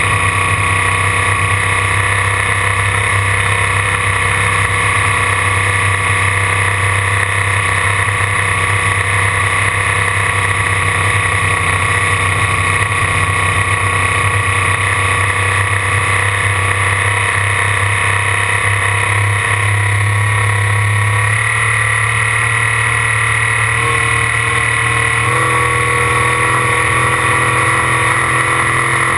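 Ford 557 V-drive inboard boat engine running steadily under way, a little past three-quarters through its note shifts slightly as the engine speed changes.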